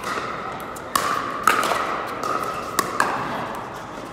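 Pickleball rally: sharp pops of paddles striking the hollow plastic ball, about four hits with two quick pairs, each followed by a short ring.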